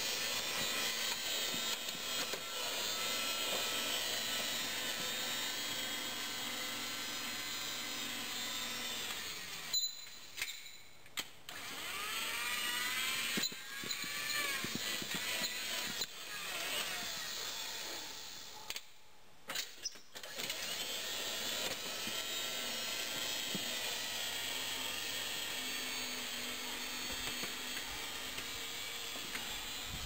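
Homemade electric garden tractor with a 24-volt shunt-wound DC motor at work, a quiet whirring of motor and drivetrain as it drags a tine ripper through loose dirt. A whine rises and falls in pitch in the middle, and the sound drops out briefly twice.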